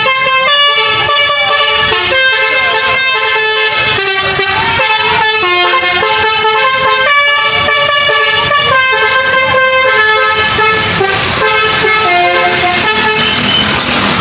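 Basuri telolet bus horn playing a tune: several horn trumpets sound together in chords that step quickly from note to note, a new note every fraction of a second, without pause.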